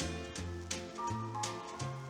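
Country-pop band playing an instrumental passage with no vocals: bass notes stepping under held chords and a steady beat.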